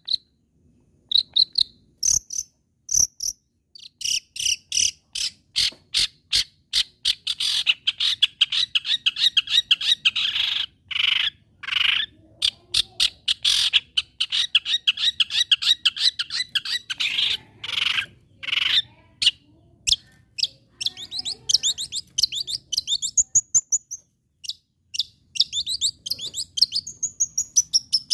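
Long-tailed shrike singing: runs of sharp, rapidly repeated chattering notes broken by short pauses, ending in a falling series of notes. It is a song used to goad other shrikes into calling.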